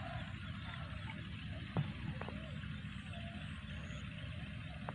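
Steady outdoor background noise with a low rumble, and a single sharp click a little under two seconds in.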